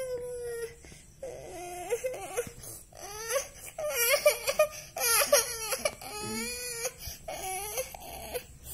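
A young boy crying in a string of wavering wails with short breaks between them.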